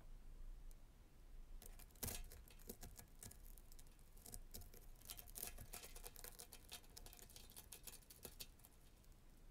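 Faint crackling and scraping of a metal pick prodding and breaking up the charred, molten plastic of a melted figurine on a steel surface: a dense run of small clicks that starts about one and a half seconds in and dies away near the end.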